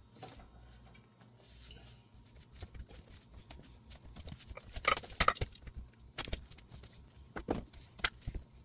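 Irregular knocks and clicks of clamps and boards being handled and set in place during a wood glue-up, with the loudest cluster about five seconds in and a few more sharp knocks near the end.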